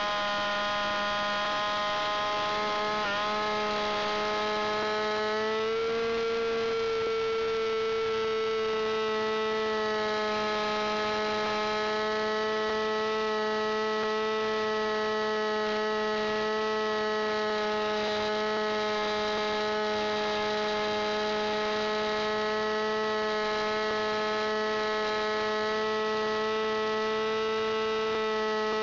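Small fuel-burning engine of an RC aerobatic model plane running steadily in flight, heard from on board the model. Its pitch dips briefly about three seconds in, then rises a little a couple of seconds later and holds.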